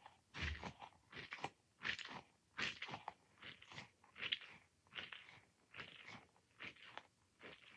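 Squishy ball being squeezed and worked over and over, making short crunchy squelches about twice a second.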